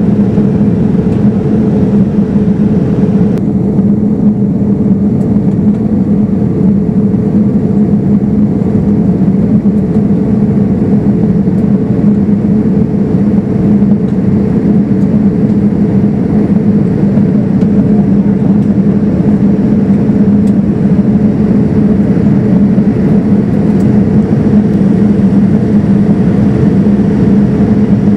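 Boeing 787-9 cabin noise in cruise, heard at a window seat: a steady rush of air and engine drone with a constant low hum.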